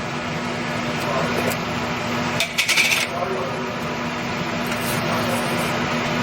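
A quick cluster of light metallic clinks about two and a half seconds in, over a steady hum with a low constant tone.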